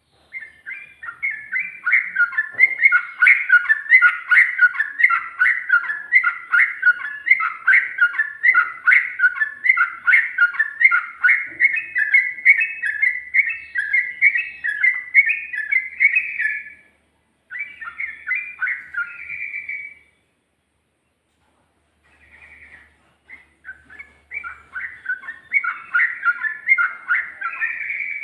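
Yellow-vented bulbul (cucak trucuk) singing a fast, run-on song of quick chattering phrases. It breaks off about 17 seconds in, sings a short burst, falls silent for about two seconds, then starts again and keeps going to the end.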